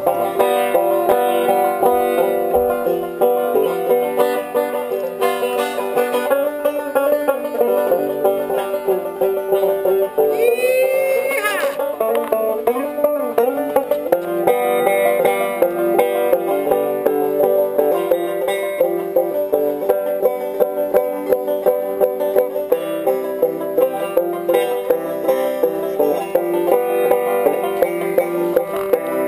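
Five-string resonator banjo picked in quick runs of plucked notes, with a brief upward sliding sound about ten seconds in.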